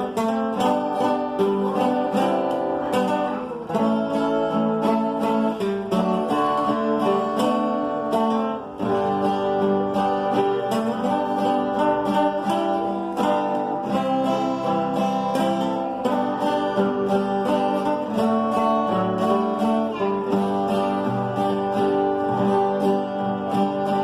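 Acoustic guitar playing the instrumental introduction to a song: a plucked melody over chords.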